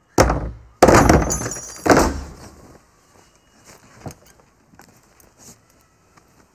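Heavy pounding on a wooden door: three hard blows about a second apart, each leaving a rattle of the door and its latch in the frame, then faint rustling and small knocks.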